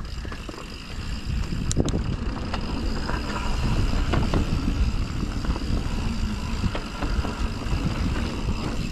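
Mountain bike riding a dirt trail: a steady rushing of tyres and air, with sharp rattles and knocks from the bike over bumps several times.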